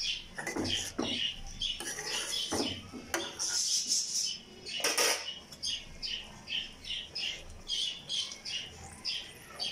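Metal spatula scraping and knocking against a metal karahi as a fish curry is stirred, through the first five seconds. After that, a bird chirps repeatedly in the background, about two short calls a second.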